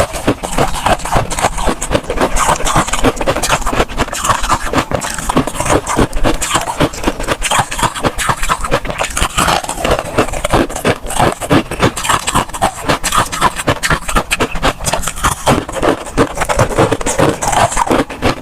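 Crunchy freezer frost being crunched: a dense, unbroken run of crisp, crackly crunches.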